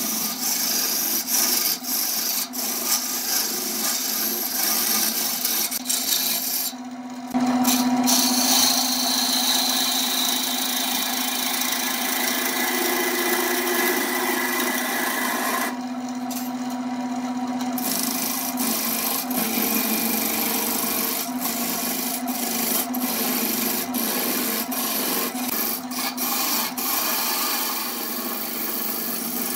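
Wood lathe running while a scraper cuts into a spinning glued-up wooden blank: a continuous rasping, scraping noise peppered with small clicks of chips and shavings, over the lathe's steady hum. The cutting noise drops out briefly twice, about a quarter of the way in and just past halfway, leaving the hum alone.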